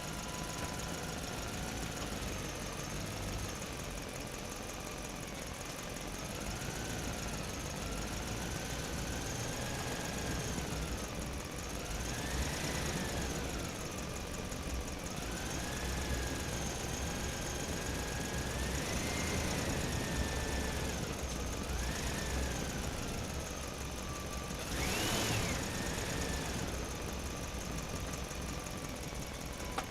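Truck driving through a parking structure: its engine pitch rises and falls several times as it speeds up and slows, with the loudest surge near the end.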